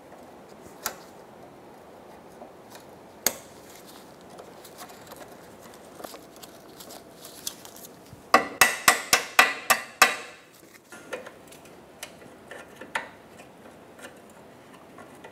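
Sharp metal clicks of hand tools working a rusty cotter pin out of a ball-joint castle nut: a few single clicks, then a quick run of about eight clicks as Knipex cutters grip and bend the pin.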